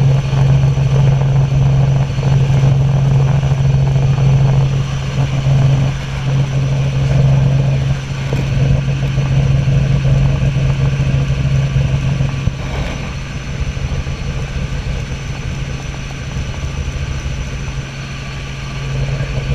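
Robinson R44 helicopter in steady flight, heard from aboard: a loud, even drone of engine and rotor with a strong low hum, easing a little in the second half.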